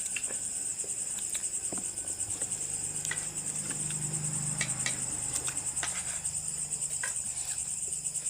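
Crickets chirping steadily in a continuous high trill, with a few scattered light clicks.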